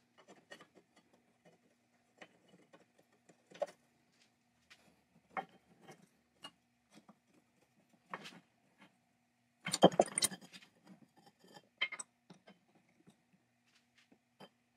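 Rusty iron parts and hand tools clinking and tapping against each other and the wooden bench as a bolted bracket is handled and loosened, with a denser, louder rattle of metal about ten seconds in. A faint steady hum runs underneath.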